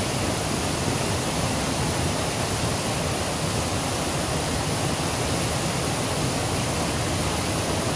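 Creek water rushing in a steady, even stream.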